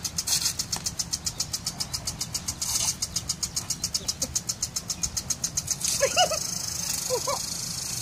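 Spinning lawn sprinkler on a garden hose, its water jet hissing in rapid pulses, about six a second, that give way to a steady hiss about three-quarters of the way in. A few short squeaky chirps come near the end.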